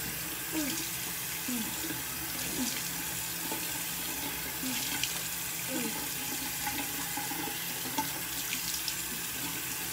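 Bathroom sink tap running steadily into the basin while hands are washed under it.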